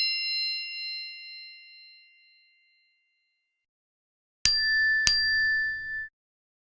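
iPhone interface alert tones: a bell-like chime dying away over the first two seconds, then after a silence two sharp high pings about half a second apart, the second holding a clear tone for about a second.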